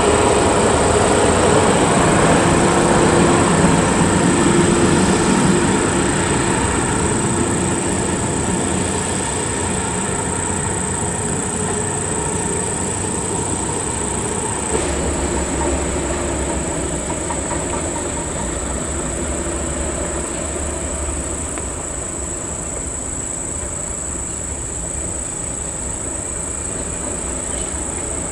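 Heavy diesel haul trucks passing on a gravel road. First a loaded Hino dump truck's engine and tyres, loudest a few seconds in. Then, after an abrupt change about halfway, the deeper rumble of a Volvo tractor hauling two side-tipping coal trailers.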